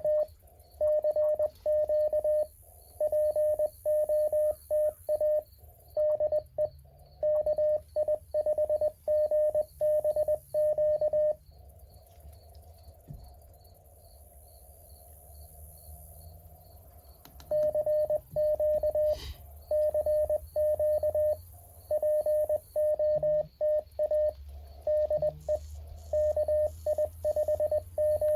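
Morse code from a Mountain Topper 4B QRP transceiver: a single steady-pitched tone keyed in dots and dashes. About eleven seconds in, the code stops for some six seconds, leaving faint receiver hiss, then resumes.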